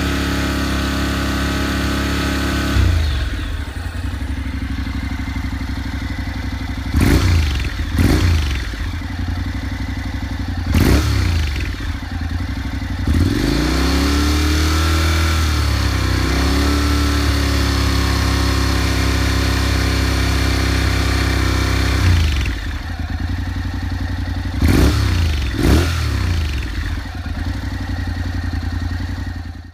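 Honda NC700X parallel-twin engine idling through its exhaust, blipped on the throttle in a series of quick revs. About midway it is held for one longer rev that rises and falls, then it settles back to idle.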